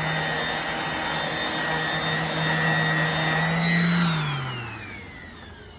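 An electric motor running steadily with a hum and high whine, then switched off about four seconds in, its pitch falling as it spins down.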